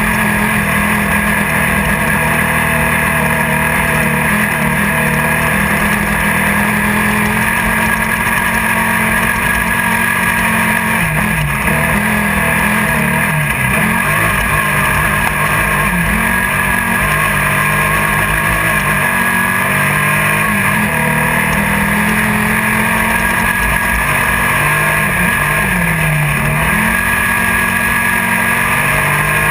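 Class 1600 desert race car's air-cooled, VW-based engine running hard at sustained high revs, heard from inside the car. Its pitch dips and recovers briefly twice, about eleven seconds in and again near the end.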